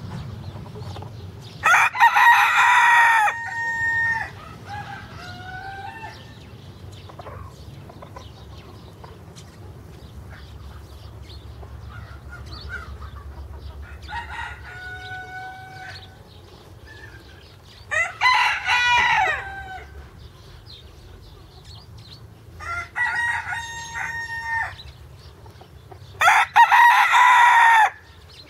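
Pavlovsk rooster crowing three times: once near the start, once past the middle and once near the end, each call about a second and a half long. Quieter chicken calls sound in between.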